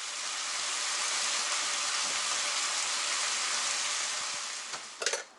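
Sliced itadori (Japanese knotweed) stalks sizzling in oil in a frying pan as kinpira, a steady loud hiss that fades near the end. A few sharp clicks follow about five seconds in.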